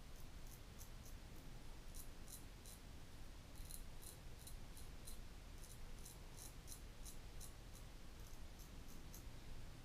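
Portland Razor Sprite straight razor scraping through lathered stubble on the chin: faint, short scratchy strokes, a few a second in quick runs with brief pauses.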